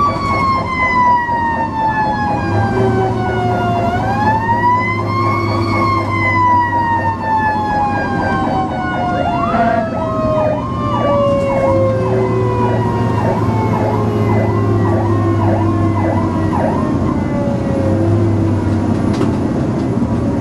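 Fire apparatus siren in a long falling wail, wound up once about four seconds in, then left to coast slowly down in pitch as the engine nears the crash scene. A faster yelping siren sounds for several seconds in the middle, over a steady diesel engine drone.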